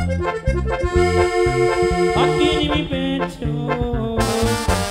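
Live band playing an instrumental passage of Latin dance music: held melody notes over a pulsing bass line, with a short rising slide about two seconds in.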